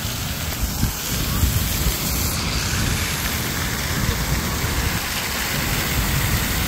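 Splash-pad fountain jets spraying up and splattering onto wet paving: a steady hiss like rain, over a low, uneven rumble.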